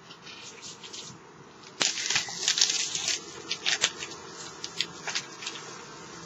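Plastic packaging being handled and opened, with crinkling, crackling and tearing. It starts about two seconds in and goes on in a run of sharp crackles.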